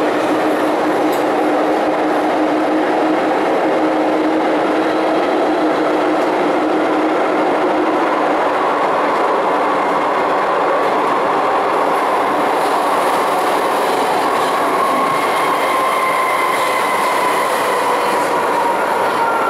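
MTR Island Line M-Train (Metro-Cammell electric multiple unit) running through a tunnel, heard from inside the car: a steady rumble of wheels on rail with the traction motors' whine. A low hum fades out in the first half, and from about halfway a higher motor whine comes in and slowly falls in pitch.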